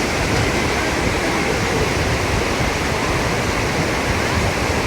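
Fast-flowing river rushing over rapids: a steady, unbroken rush of water.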